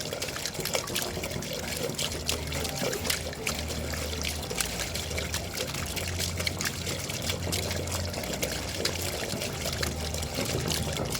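Water trickling and dripping steadily, with many small drop splashes ticking over a continuous running-water hiss.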